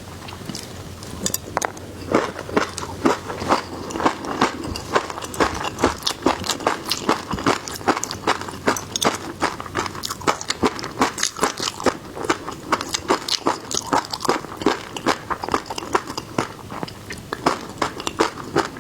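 Close-miked eating: crunchy bites and wet chewing of seafood, a steady stream of crisp crackles several times a second.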